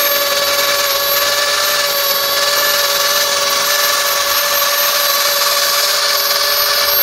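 Handheld plastic extrusion welder running steadily with a high, even motor whine of several tones, while it lays a bead of molten plastic from a welding rod over a patch seam in a geomembrane liner.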